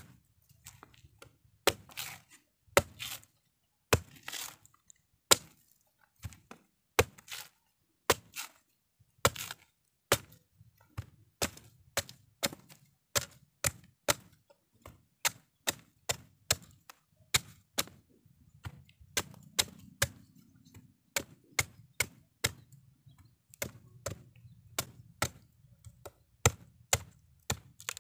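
Machete chopping into the husk of a young coconut: a long series of sharp blows, spaced irregularly at first, then quickening to about two a second.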